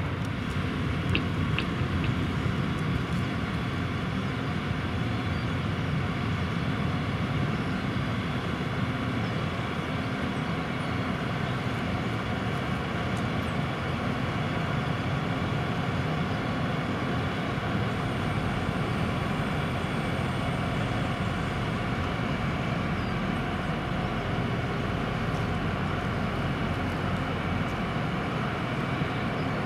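Two Rosenbauer Panther 8x8 airport crash tenders, each powered by twin Volvo inline-six engines, running steadily while their Stinger booms are raised hydraulically.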